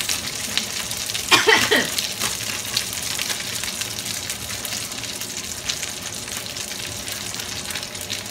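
Chicken pieces frying in hot oil, a steady crackling sizzle, with the first batch nearly cooked. A brief voice-like sound is heard about a second and a half in.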